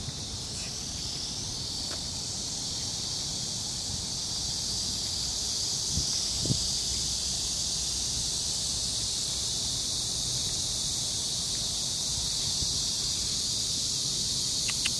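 Cicadas buzzing in a steady, high chorus that grows a little louder over the first few seconds. A couple of soft low thumps come about six seconds in.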